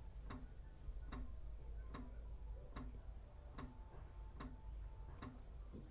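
Steady, even ticking, about five ticks every four seconds, over a low steady hum.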